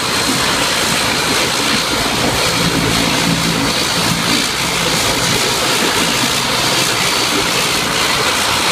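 ATR 72 turboprop airliner's two engines running on the ground with propellers turning: a loud, steady drone with a constant high whine on top.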